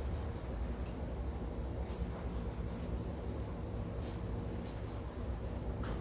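Hand trigger spray bottle of Ajax cleaner squirting in short hissy bursts, several quick pumps at a time, onto pressurised LPG manifold fittings for a bubble leak test. There is a steady low rumble underneath.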